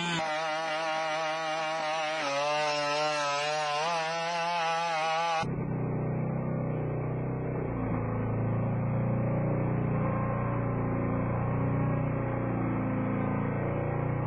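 BigDog quadruped robot's small two-stroke engine, which drives its hydraulic pump, running with a loud buzzing whine whose pitch wavers up and down as the robot walks. About five seconds in the sound cuts abruptly to a duller, lower drone from the robot.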